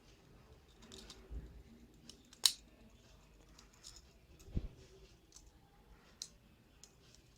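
Scattered sharp metal clicks and snaps from a cheap stainless steel 14-in-1 Swiss-style multitool, its stiff tools being worked open and shut, with a couple of dull handling knocks. The loudest click comes about two and a half seconds in.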